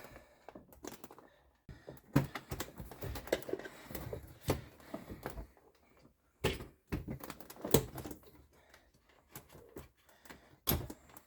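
Irregular plastic clicks and knocks from a car door trim panel being handled as its electrical connector is squeezed and unclipped.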